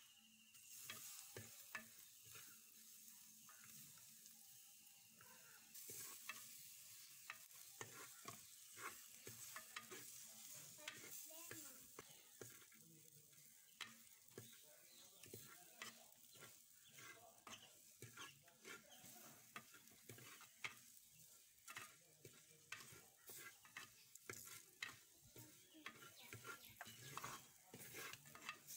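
Quiet sizzling of onions and spices frying in oil in a clay pot, with a wooden-handled spoon scraping and knocking against the pot's sides at irregular intervals as it stirs.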